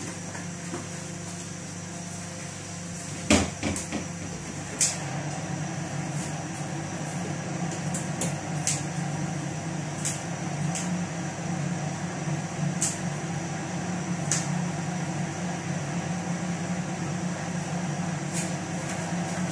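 Gas stove burner running steadily under a pot of heating cooking oil, with two sharp knocks a few seconds in and faint scattered ticks after them.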